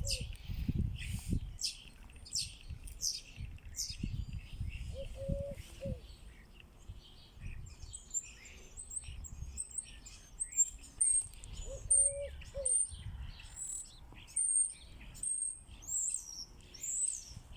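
Small birds chirping: short, very high-pitched chirps, each rising or falling, repeating about once a second through the second half, with a lower two-note call heard twice. Low rustling noise fills the first few seconds.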